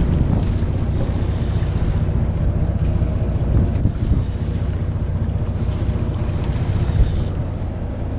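A boat's engine running steadily, with wind buffeting the microphone and water washing along the hull.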